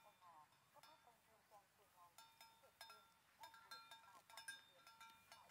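Faint, irregular clinking of metal bells on grazing cattle, each strike ringing on briefly at the same pitch, with small birds chirping.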